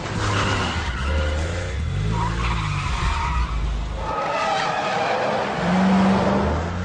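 Car engines revving and tyres skidding and squealing in an action-film chase soundtrack, with pitch glides rising and falling throughout.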